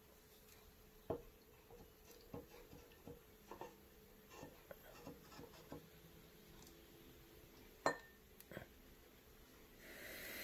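Light clicks and taps of a plastic syringe knocking against a drinking glass as it is dipped in to draw up water, with one sharper knock about eight seconds in.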